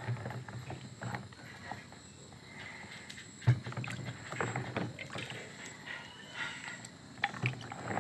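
Water sloshing and splashing as a hand stirs large mud clams in a basin, with irregular knocks and clicks of the shells against each other; the sharpest knock comes about three and a half seconds in.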